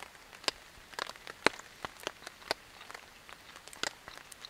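Light rain, with scattered drops ticking sharply and irregularly on the shelter over a faint steady hiss.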